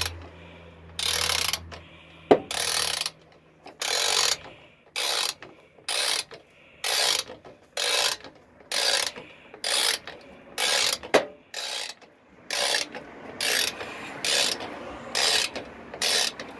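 Hand socket ratchet clicking in repeated strokes as a fender bolt is tightened down, about one stroke a second and quickening toward the end. Two sharp, louder clicks stand out among the strokes.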